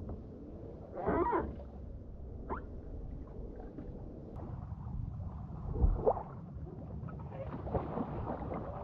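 Kayak paddling on calm water: irregular splashes and gurgles of the paddle blade and water against the hull, over a low wind rumble on the microphone.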